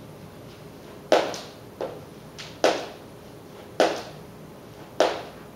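A person doing single-leg hops in sneakers on a hard floor, landing on the ball of the foot: a thud at each landing, four heavy ones about a second apart with a couple of lighter taps between.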